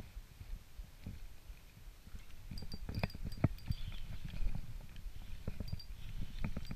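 Handling noise while a spinning reel is cranked to retrieve a lure: irregular low knocks with a few faint clicks, busier from about halfway through.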